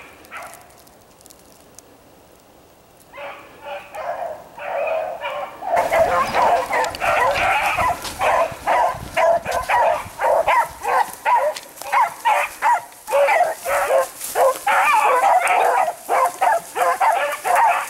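Pack of rabbit beagles baying. A few scattered barks come in about three seconds in, then from about six seconds on it becomes a steady chorus of overlapping barks: the pack in full cry on a rabbit's trail.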